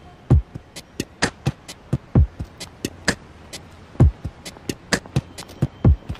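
Slow, sparse drum-machine beat: deep kick drums that drop in pitch alternate with sharp snare-like hits about once a second, with lighter ticks between and no vocals.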